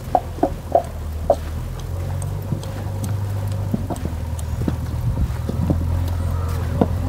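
Footsteps on a packed dirt path: a few sharp steps in the first second or so, then fainter ones, over a steady low rumble.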